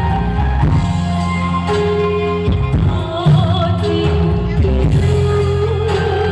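Music over a loudspeaker sound system: a singing voice holding long, wavering notes over a steady bass and a drum beat.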